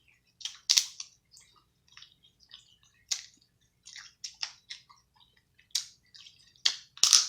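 Close-miked eating sounds: wet chewing and lip smacks, heard as irregular short clicks while seafood in sauce is eaten.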